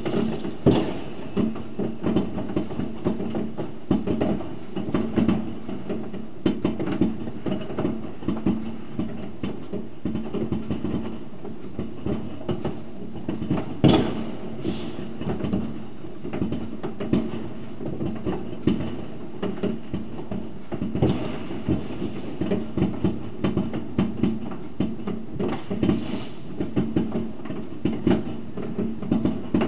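Many distant fireworks and firecrackers going off across a city: a continuous crackle of overlapping bangs, with one louder bang about 14 seconds in.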